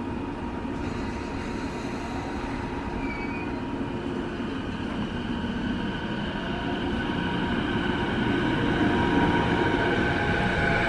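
Electric train on the JR Nanbu Line running through the station, its rumble growing steadily louder over the last few seconds as it draws near, with a motor whine that bends in pitch.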